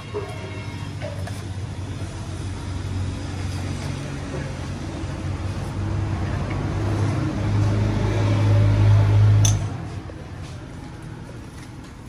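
Steady low motor hum that grows gradually louder, then stops suddenly with a click near the end.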